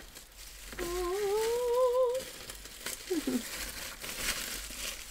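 A woman hums one note of about a second and a half that slowly rises in pitch, then makes a brief falling vocal sound. Bubble wrap crinkles around a comic book as it is handled.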